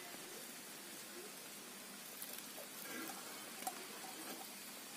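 Faint steady sizzle of small fish frying in a covered pan over a wood fire, with a light click about three quarters of the way through.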